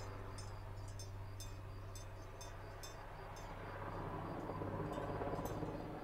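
Super Puma military helicopter flying overhead: a steady low rotor and turbine drone that grows louder as it comes closer in the second half.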